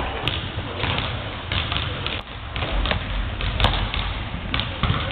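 Basketballs bouncing on a hardwood gym floor: irregular thuds, one sharper bang about three and a half seconds in, over a steady echoing hall din.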